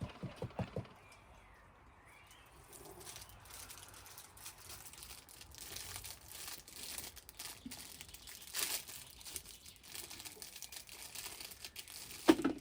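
Plastic wrapping crinkling and rustling as it is handled, a faint crackle of many small ticks for most of the time, with a brief louder sound near the end.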